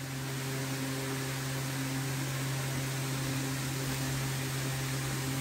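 A steady low hum over an even hiss.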